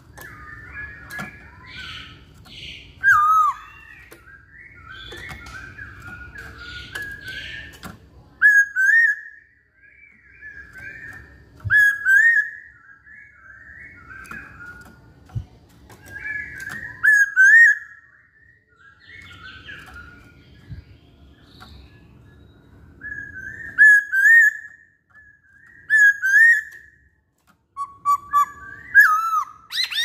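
Caged poksay Hongkong (black-throated laughingthrush) singing a varied song of loud whistled phrases and chattering notes, with gaps between phrases. Sharp knocks and wing flutters come from the bird hopping about the cage. A low rumble with a faint steady hum comes and goes underneath.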